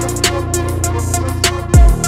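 Chillhop beat: sustained keys and bass chords over a drum-machine groove, with a sharp snare-like hit about a quarter second in and a deep kick drum that drops in pitch near the end.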